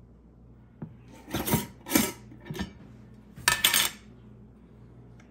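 Metal screw lid twisted off a glass canister and set down on a stone countertop: a few short bouts of scraping and clinking, the last about three and a half seconds in with a brief metallic ring.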